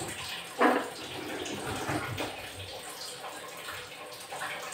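Hot oil sizzling steadily in a kadhai as jalebi fry. A sharp knock about half a second in is the loudest sound, with a few lighter knocks after it.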